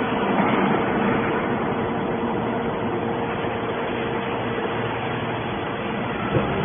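Hydraulic scrap-metal baler's power unit running with a steady hum amid workshop machinery noise, with a single short knock about six seconds in.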